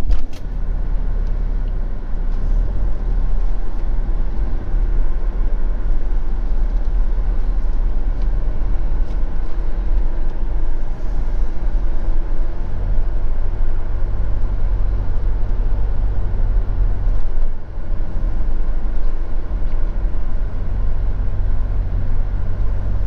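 Motorhome engine running at low speed with a steady low rumble, heard from inside the cab as it drives slowly.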